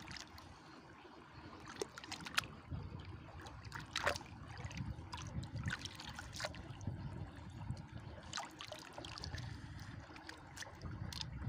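Hands sloshing and trickling in shallow water while feeling for kupang clams, with scattered sharp clicks of the clam shells knocking together as they are picked up and dropped into a plastic basket.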